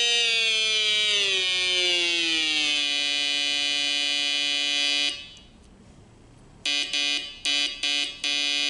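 Homemade Morse code oscillator buzzing through a small loudspeaker: a steady buzzy tone glides down in pitch over the first three seconds as its pitch potentiometer is turned, holds, then cuts off about five seconds in. Near the end it is keyed on and off in five short beeps, like Morse code.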